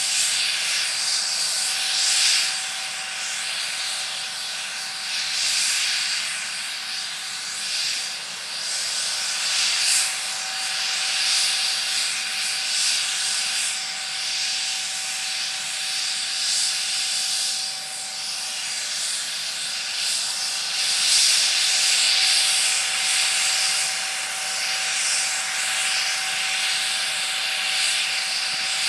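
MD902 Explorer helicopter's twin turboshaft engines running on the ground during start-up: a steady whine over a loud, rushing hiss that swells and eases slightly.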